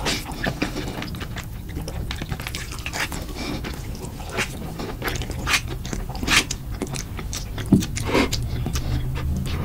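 Close-miked eating sounds: noodles in spicy sauce being slurped and chewed, with wet mouth smacks and clicks scattered throughout and a few longer slurps.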